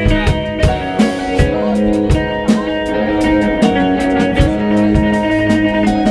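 Live band playing: sustained keyboard chords over a steady drum-kit beat.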